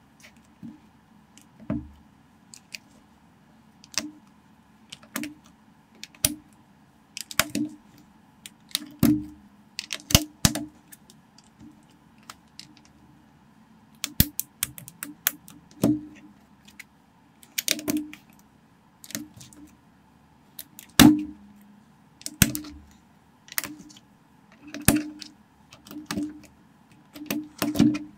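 Lego plastic bricks and plates being pressed and snapped together and set down on a tabletop: irregular sharp clicks and dull taps, about one or two a second, some in quick clusters.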